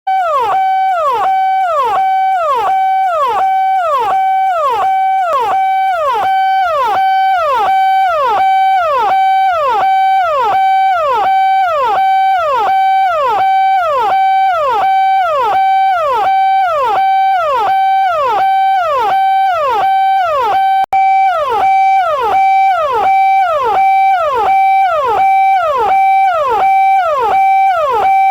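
Indian police siren, electronic: a tone that holds steady, then drops sharply in pitch, over and over, a little more than once a second. The sound cuts out for a moment about 21 seconds in, then carries on.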